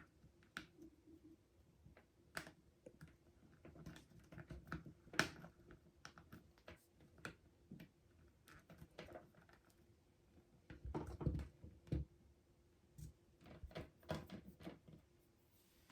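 Faint, irregular typing and clicking on a laptop keyboard, with denser runs of keystrokes about two-thirds of the way in and near the end.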